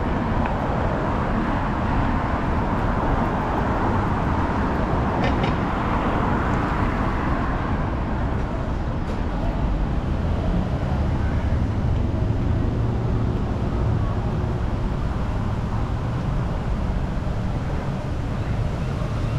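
City street traffic: the steady noise of cars passing, with a low engine hum that grows stronger around the middle and fades again.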